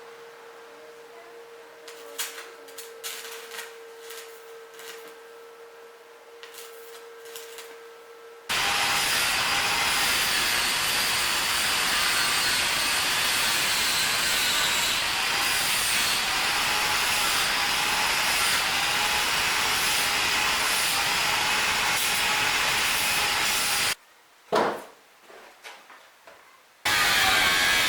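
Loud, steady hissing from metalwork on a VAZ Zhiguli's exhaust muffler, starting abruptly after a quieter stretch of faint clicks and a steady hum. It cuts off for a few seconds near the end, with a single sharp knock, then starts again.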